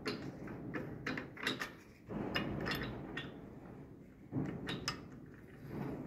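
Scattered metal clicks and knocks as the locking knob and latch on the rotor-housing cover of a Trapp TRF-800 forage chopper are unscrewed and worked by hand, over a low rustle of handling.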